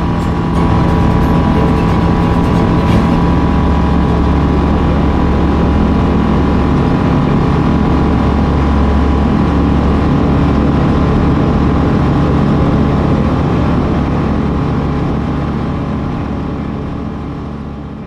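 Tecnam P92 Eagle's engine and propeller at takeoff power, heard from inside the cabin: a steady drone that gets louder about half a second in and fades away over the last few seconds.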